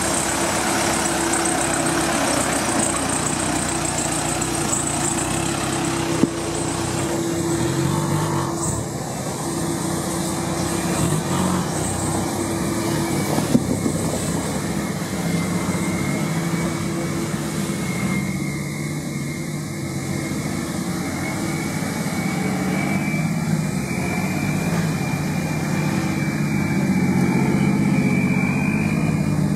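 Off-road 4x4 engines running at low revs as lifted trucks crawl one after another over a rough trail. A thin steady whine sits above the engine note in the second half, a couple of sharp knocks are heard, and the engine sound grows louder near the end.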